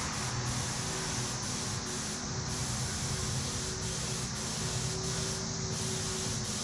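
Air-fed paint spray gun hissing steadily as it sprays Cerakote coating, the hiss dipping briefly several times, over a steady low hum.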